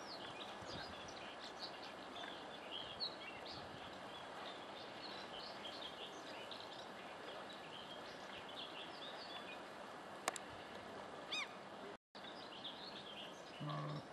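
Many small birds chirping and singing over a steady outdoor background noise. There is a sharp click just after ten seconds, a brief break in the sound about twelve seconds in, and a short low hum near the end.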